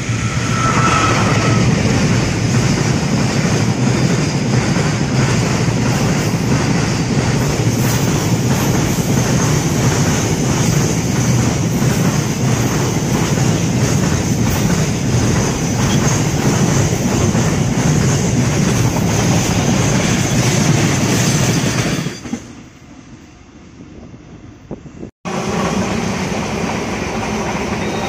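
A train passing close by, its wheels clacking over the rail joints in a steady rhythm. About 22 seconds in the sound drops away abruptly, there is a moment of silence, and then train noise starts again.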